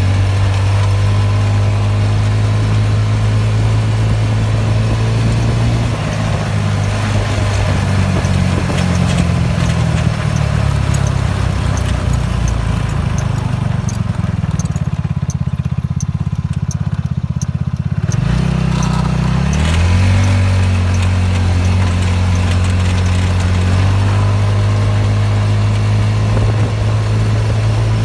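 Go-kart's engine running steadily as it drives. It eases back to a low, idle-like note in the middle, then rises in pitch as it picks up speed again and settles into a steady run.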